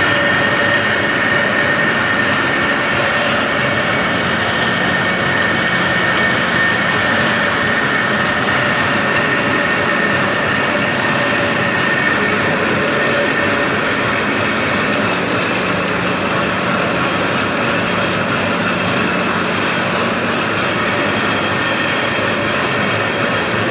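Radial drilling machine running steadily: an even mechanical noise with a steady high whine over it.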